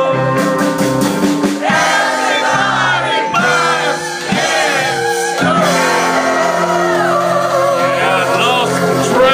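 Live rock band with drums, guitar and keyboard playing, under a man's voice singing loudly into a microphone. About halfway through, the singing turns to long, wavering held notes.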